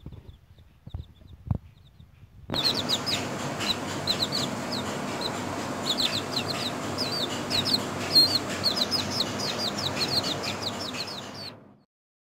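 Young chicks peeping: a dense run of short, high chirps that starts about two and a half seconds in and cuts off just before the end, over steady background noise.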